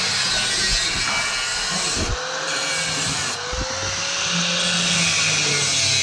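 Angle grinder with a cut-off disc cutting through square steel tube: a steady loud grinding hiss, the motor's pitch sagging briefly twice as the disc bites and then recovering.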